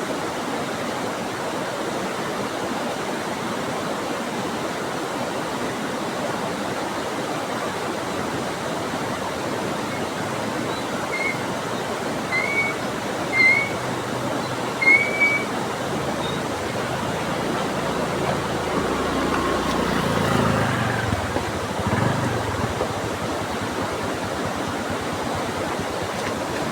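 Steady rushing of flowing water, like a stream or waterfall. Four short high chirps come about halfway through, and a louder low rumble swells briefly a few seconds before the end.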